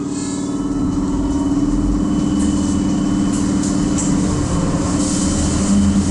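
Trolleybus in motion, heard from inside: a steady electric motor hum with a faint high whine over road rumble, growing a little louder in the first second.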